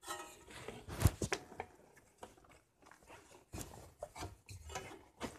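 Handling noise: irregular knocks, clicks and rustling as the camera is moved about, with one sharp knock about a second in.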